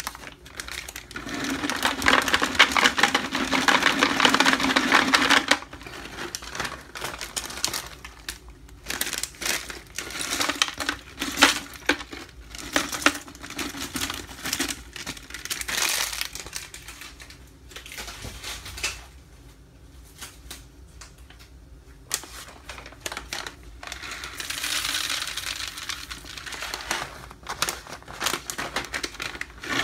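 Nuts poured from packets into a large plastic jar, rattling down onto the nuts already inside: a long pour near the start, scattered rattles and packet crinkles in the middle, and another pour near the end.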